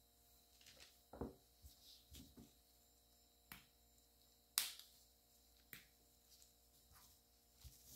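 Faint, scattered clicks and taps of small plastic containers being handled with gloved hands, the sharpest click a little past halfway.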